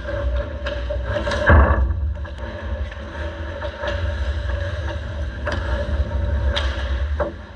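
Ice hockey play: skate blades scraping and cutting on the ice, with scattered sharp clacks of sticks and puck, over a steady low hum.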